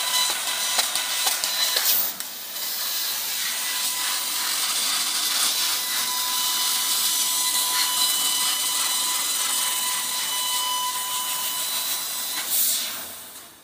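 Laser cutting machine flying-cutting 2 mm steel sheet at 10 m/min: a steady high hiss with many small ticks and faint thin steady tones, fading out near the end as the cut finishes.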